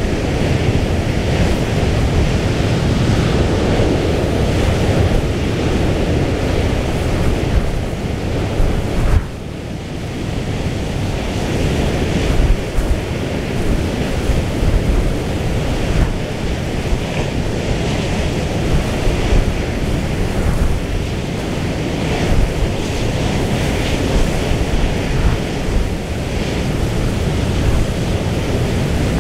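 Storm wind buffeting the microphone over the rush of rough sea. The wind drops suddenly about nine seconds in and builds back again.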